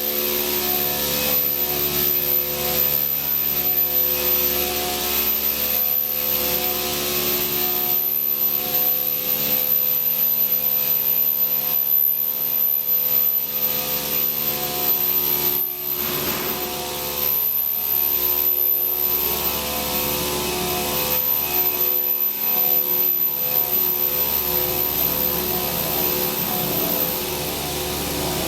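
Everising P-230B metal-cutting circular sawing machine running and cutting metal stock: a steady mechanical whine with hiss and pulsing hum, the high whine stopping near the end.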